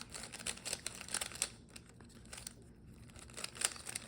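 A plastic 3x3 Rubik's cube being turned by hand, its layers snapping round in quick irregular runs of light clicks and clacks, with a short lull in the middle.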